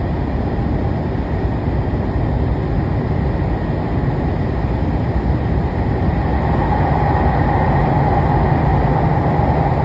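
Tokyu 3020 series commuter train running, heard from inside the passenger car as a steady rumble of wheels and running gear. About six seconds in the noise swells, with a brighter band coming up in the middle.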